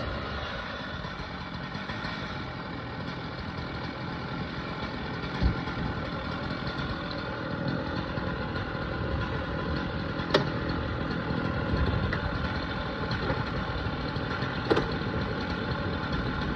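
An engine idling steadily, with three short sharp knocks spread through it.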